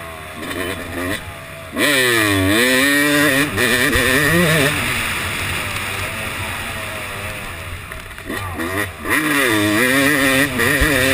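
Yamaha YZ250 two-stroke single-cylinder motocross engine under hard riding: the revs drop off and then climb sharply again, twice, as the bike brakes and accelerates through the track. Wind rushes over the camera microphone.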